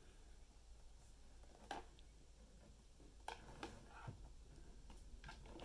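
Near silence with a low steady hum and a few faint knocks and rubs from the plastic desktop clock-calculator case being turned over in the hands.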